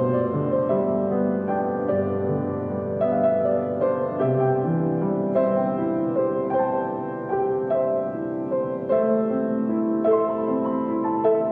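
Background music: a piano playing a gentle melody with sustained chords.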